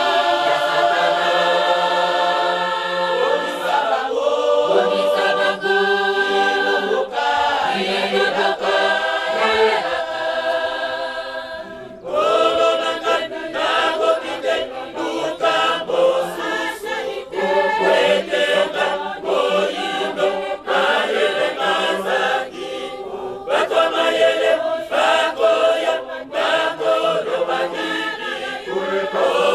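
Women's choir singing a hymn together in many voices. The singing eases off briefly about twelve seconds in, then a new phrase starts.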